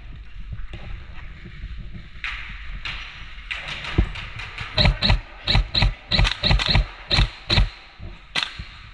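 Airsoft rifle fired in quick single shots, about a dozen sharp cracks over four seconds at uneven spacing, with a short hiss just before.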